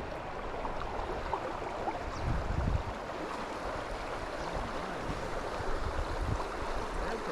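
River water flowing, a steady rushing, with a brief low rumble about two and a half seconds in.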